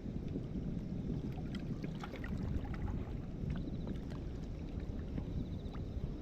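Waterside outdoor noise: a steady low rumble of wind on the microphone with water lapping, and scattered small clicks and ticks.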